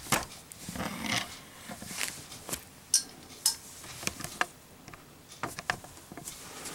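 Zippo lighter box being handled: scattered light clicks and taps, with soft rustling between them.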